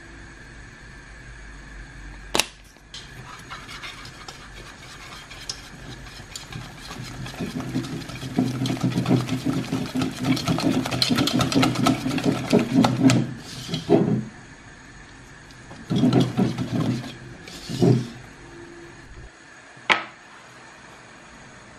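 Wire whisk beating a batter in a ceramic bowl: a fast, continuous rattle of the wires against the bowl for about six seconds, then a few shorter bursts of whisking. A sharp click comes a couple of seconds in, and another near the end.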